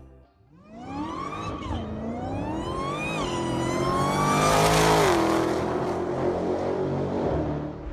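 A car engine accelerating hard through the gears. Its pitch climbs and drops back at each upshift, about a second and a half, three and five seconds in, then holds a steady high note.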